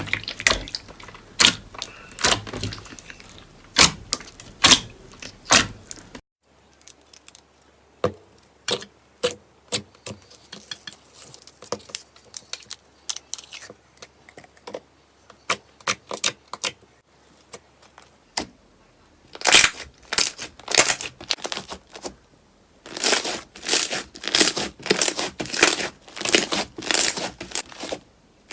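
Slime being handled, giving rapid sharp crackling and popping clicks. The sound changes abruptly at a few cuts between clips, with sparser, quieter clicks in the middle and dense loud crackling near the end.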